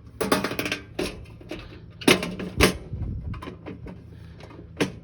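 Irregular clattering knocks and rattles of hard objects being handled, with a cluster of sharp hits about two seconds in and one more near the end.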